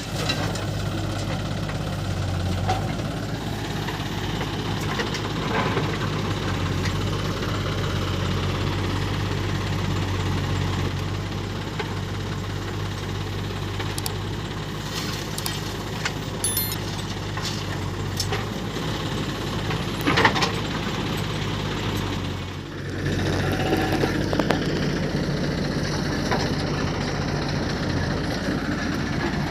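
Diesel engines of a backhoe loader and a farm tractor running steadily under work, with a few sharp knocks and a brief break in the sound about three quarters of the way through.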